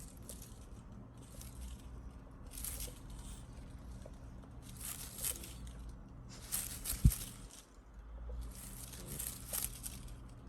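Intermittent rustling and crinkling in several short bouts, with one sharp click about seven seconds in.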